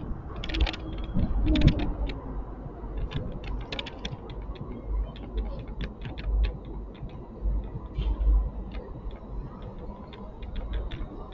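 Irregular light clicks and rattles from the moving bike and its handlebar gear, over a steady low rumble of wind and road noise while riding.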